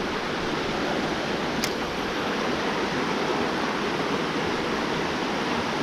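Creek water running steadily, a constant rushing noise.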